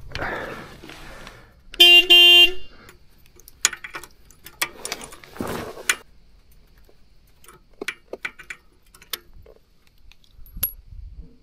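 A motorcycle horn gives two short toots about two seconds in, the loudest sound here. Scattered light clicks and knocks come before and after it.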